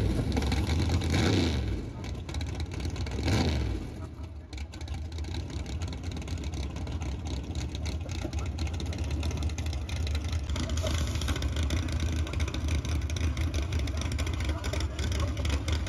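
Drag-racing cars at full throttle making a pass down the strip. There are two loud engine surges in the first four seconds, each falling in pitch as it goes by, followed by a steady low engine rumble.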